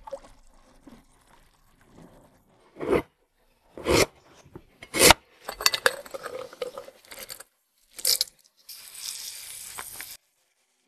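Radish prep on a wooden cutting board: three sharp knife knocks a second apart, then a clatter of radish slices dropping into a glass jar, another knock, and near the end a hiss of about a second and a half as granules are poured from a bag into the jar.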